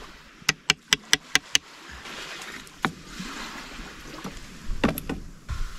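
A quick run of six sharp knocks, about five a second, as the hot coals in a driftwood fire pit are broken down by tapping on them, followed by a few scattered single knocks over a steady wash of surf.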